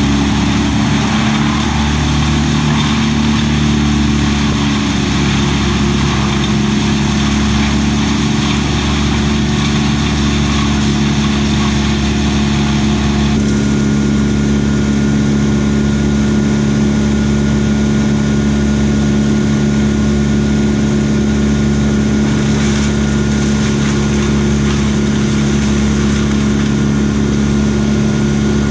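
A motor engine running steadily at a constant speed, with a slight change in its sound about halfway through.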